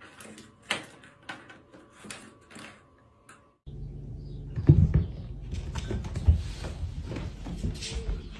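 Scattered light taps and knocks as a cat bats a toy on a tiled floor by a door. About three and a half seconds in, the sound cuts to a steady low rumble with several heavier thumps as a cat clambers about a carpeted cat tree.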